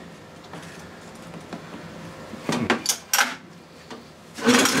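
Hands working on an outboard's carburettor: light rubbing and scattered clicks of metal parts, a few sharper clicks and a short hiss about two and a half to three seconds in, then a loud sound with a steady low hum starting near the end.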